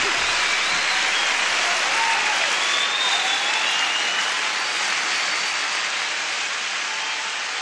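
Large concert audience applauding and cheering after a song, with high voices rising and falling over the clapping. It fades slightly toward the end.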